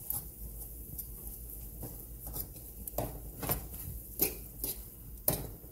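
Metal utensil scraping and clinking against a metal cooking pot as corned beef is broken up and stirred into cabbage: irregular scrapes and taps, with several sharper knocks in the second half.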